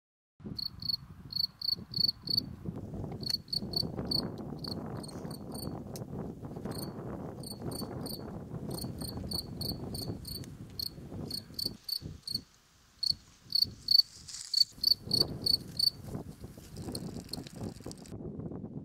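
Crickets chirping in steady trains of short, high chirps, a few a second, over low wind rumble on the microphone. The chirping stops about three seconds before the end.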